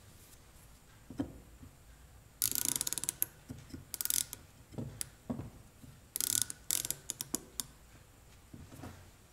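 Micrometer's ratchet stop clicking in several quick runs as the spindle is screwed down onto a ground steel parallel to measure its thickness, with a few soft knocks between the runs.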